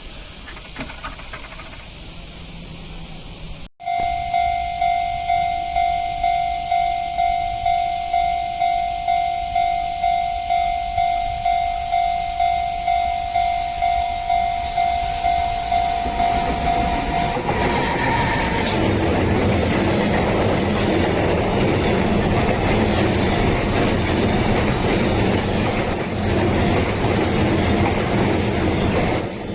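Japanese level crossing's electronic warning bell ringing in a steady, evenly pulsed tone, about two dings a second. A train then comes through the crossing and its wheels clattering over the rails rise and drown out the bell.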